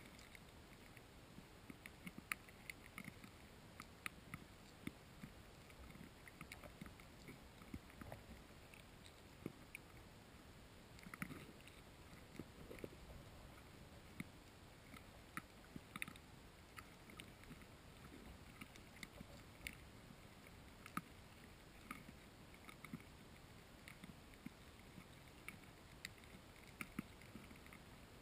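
Faint, irregular clicks and ticks heard underwater as carp feed on the bottom, sucking in and crunching food, over a low quiet rumble.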